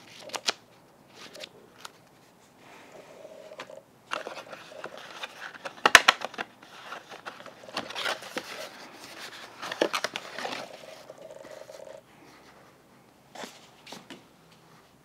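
Paper and packaging handling: a folded paper instruction booklet and box materials rustling and crinkling, with sharp clicks and taps near the start and again near the end. The densest crinkling fills the middle stretch, with the loudest snap about six seconds in.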